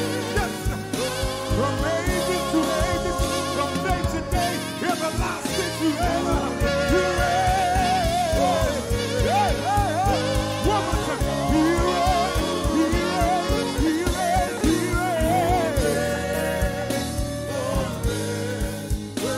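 Gospel praise-and-worship song: several singers singing into microphones over a live band, with steady bass notes and a regular drum beat.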